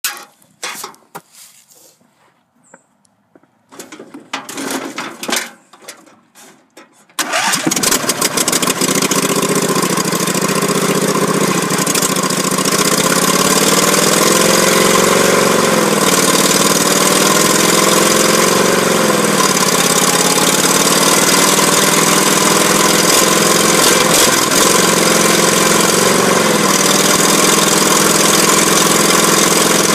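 Lawn tractor engine starting after some knocking and rustling about seven seconds in, then running loudly as the tractor is driven, its pitch rising and falling as it speeds up and slows.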